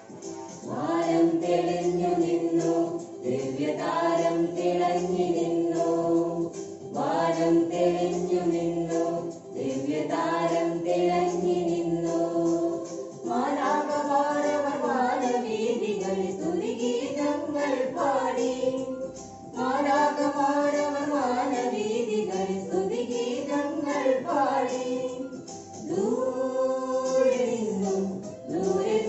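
A family group of men's and women's voices singing a song together in unison, in phrases of a few seconds with short breaths between. The melody moves higher about halfway through.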